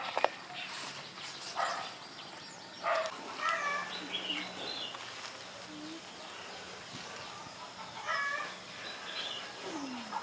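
Short animal calls in scattered groups, with a few sharp clicks in the first second.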